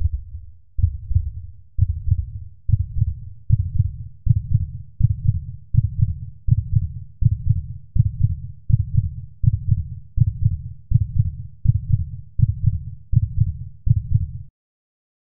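Deep heartbeat thumps on the film's soundtrack, each a double beat, speeding up from about one a second to about one and a half a second, then cutting off suddenly near the end.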